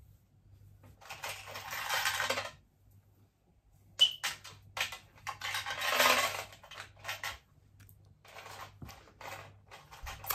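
Rustling handling noises in two longer bursts, with several sharp clicks and light clinks of small objects.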